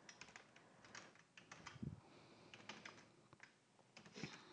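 Faint typing on a computer keyboard: a run of irregular, quick keystrokes as a terminal command is entered.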